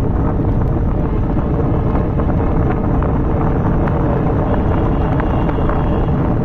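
Wind buffeting the microphone on a moving motorbike, a loud, steady rumble, with the bike's engine running underneath.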